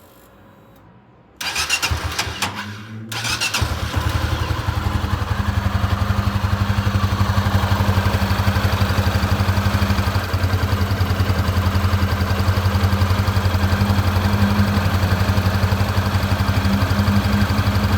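Honda CB300F Twister's single-cylinder engine cranked on the electric starter for under two seconds, then catching and settling into a steady idle. The owner hears a rattle in it, like some metal part knocking, which he cannot identify.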